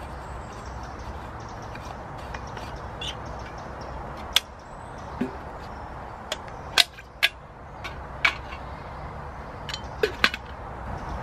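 Camp cookware being handled: a stainless steel water bottle and a black metal pot knocking and clinking against each other, the log and a small folding metal stove. About half a dozen sharp, short clinks and taps come scattered through, two close together near the end as the pot is set on the stove.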